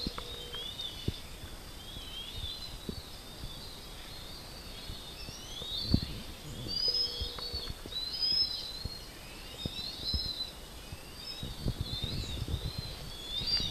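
Birds chirping: many short, high, wavering calls repeat and overlap throughout. A few low rumbles and knocks come in, the biggest about six seconds in and again near the end.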